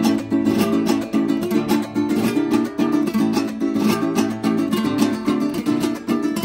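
Venezuelan bandola llanera and cuatro playing a joropo in the pajarillo form, in D minor. The bandola plays a fast plucked melody over the cuatro's driving strummed rhythm.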